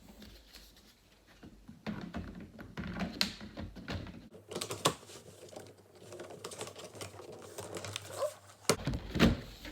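Scattered plastic clicks and taps of a laptop being handled as its battery is clicked back into place, with a cluster of louder clicks near the end.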